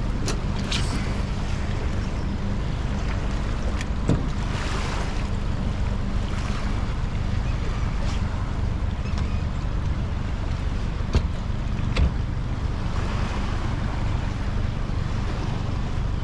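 A boat's motor running steadily under wind and water noise, with a few sharp knocks, the loudest two about two-thirds of the way through.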